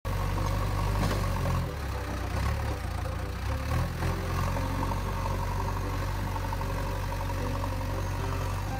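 A heavy engine idling with a steady low rumble.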